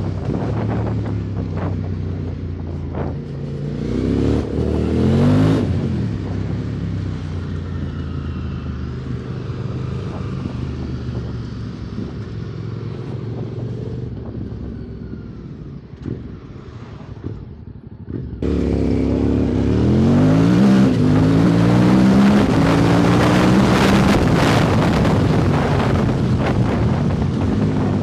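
QJ Motor SVT650X parallel-twin engine with an Arrow slip-on exhaust under way, revving up about four seconds in, then easing off and quieter for a few seconds. About eighteen seconds in it opens up suddenly and louder, climbing in pitch several times over as it accelerates through the gears.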